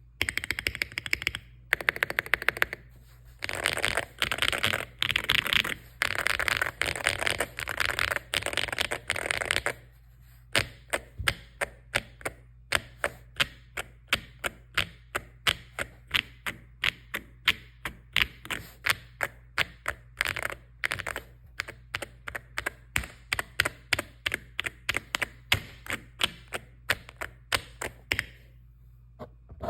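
Mechanical keyboard with AKKO Lavender Purple V3 Pro tactile switches, typed in fast runs for about ten seconds, then pressed one key at a time, about two presses a second. The sound is a rich, poppy clack.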